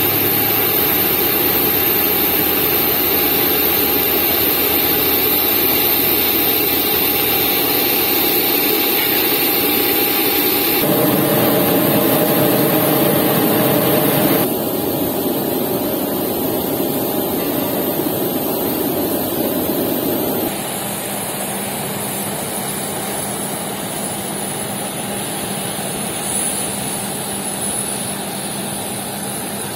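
Steady whine and rumble of a parked Boeing 737's auxiliary power unit, mixed with the engines of airport ground vehicles running nearby. The mix shifts suddenly about 11, 15 and 21 seconds in, and is a little quieter after the last change.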